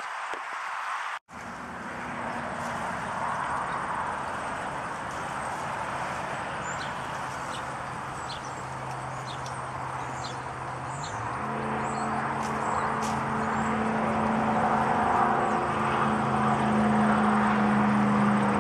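A motor running steadily with a low hum. The hum steps up in pitch about eleven seconds in and grows louder toward the end, over a steady hiss.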